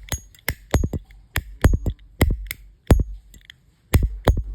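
Zippo lighter lid being flicked open and snapped shut over and over, about a dozen sharp metallic clacks, some with a short high ring. The lid action is a little stiff from the replaced cam.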